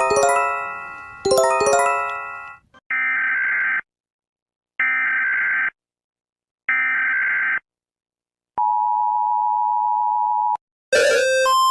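Emergency Alert System-style alarm. Two struck chime tones ring and fade, then three separate one-second bursts of screeching digital header tones. After that comes a steady two-tone attention signal for about two seconds. Near the end a new electronic sound with a repeating beep pattern cuts in.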